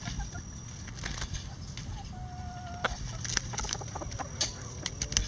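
Bantam chickens pecking at a hanging cabbage, their beaks tapping in scattered sharp clicks, with one short level call from a chicken about two seconds in.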